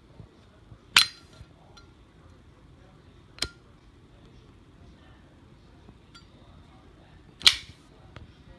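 Zippo lighter's metal case clicking, three sharp metallic clicks with a brief ring: about a second in, about three and a half seconds in, and near the end, the first and last loudest.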